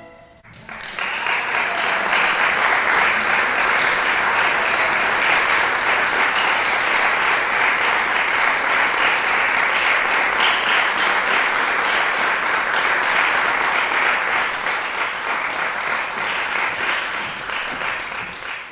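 Concert audience applauding steadily after a live chamber performance, the clapping building up about a second in and fading out near the end.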